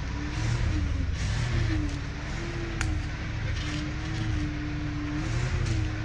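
Engine of a log-laden truck running under load as it crawls along a rutted sandy track, its note rising and falling over a heavy low rumble. A single sharp click about halfway through.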